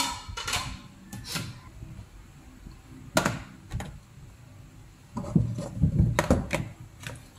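Clear plastic food containers and a cut squash half being handled on a kitchen counter: a string of knocks and clatters, with the loudest run of them in the second half.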